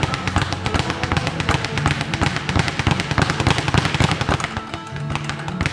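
Speed bag rattling in a fast, continuous run of punches, easing briefly about four and a half seconds in, over background music.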